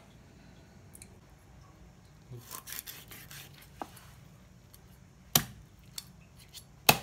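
Large knife cutting through a largehead hairtail behind the head on a wooden chopping board: a few scraping strokes a couple of seconds in, then two sharp knocks about a second and a half apart as the blade strikes the board.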